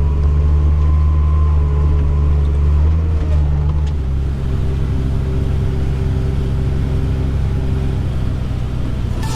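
Combine harvester running steadily under load while harvesting corn, a low, even drone whose tone shifts slightly and eases a little about four seconds in.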